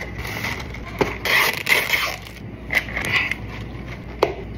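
A plastic drink pouch and a cup of ice being handled: packaging crinkles in two short bursts, then the pouch drink is poured over ice in a plastic cup, with a sharp crack of ice near the end.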